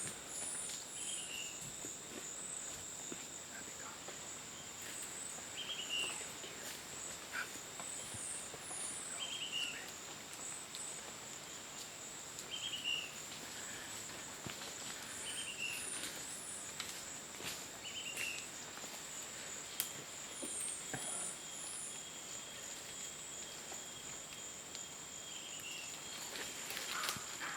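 Rainforest insect chorus: a steady high-pitched drone, with short high chirps in twos and threes above it and a short lower call repeated every second or two.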